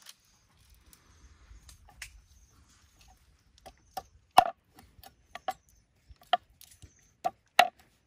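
A cleaver chopping a skinned frog on a round wooden chopping board: a run of sharp knocks starting about halfway through, with the two loudest strokes about halfway and near the end.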